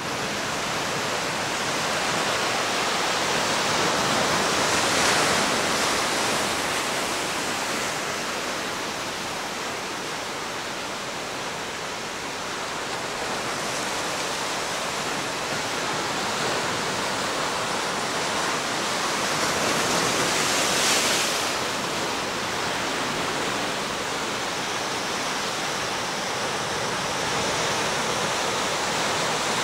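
Heavy surf raised by an approaching tropical storm, breaking and washing over rocks and onto a beach: a steady rush of foaming water that swells louder about five seconds in and again about twenty seconds in.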